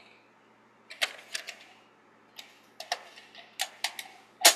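A plastic VHS cassette handled and turned over in the hands: a series of irregular sharp clicks and taps, the loudest near the end.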